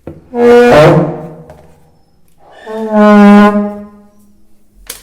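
Bed's plastic furniture feet dragging on the floor as the bed is pushed, twice: each a loud, horn-like groan lasting about a second. The plastic silencer feet are not stopping the noise. A short sharp click comes near the end.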